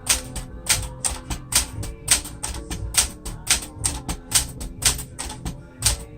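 A 1966 Sears Citation 12 manual typewriter, built by Smith-Corona, being typed on: its typebars strike the platen in a steady run of sharp clacks, about three to four a second.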